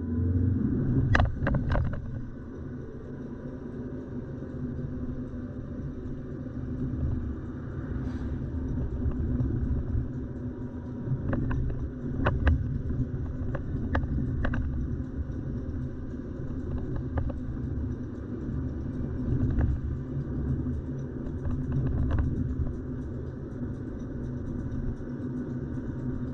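A car driving on city streets: a steady low rumble of engine and road noise, with a handful of short, sharp clicks or knocks scattered through it.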